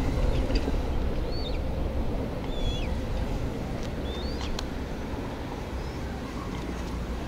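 A steady low rumble that slowly fades, with several short bird chirps and a few faint clicks over it.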